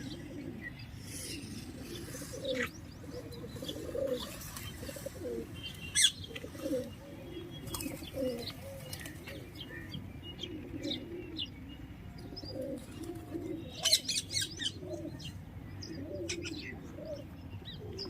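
A flock of pigeons cooing continuously in low rolling coos, with small birds chirping and a few sharp clatters of wings flapping, the loudest about six seconds in and a quick run of them about fourteen seconds in.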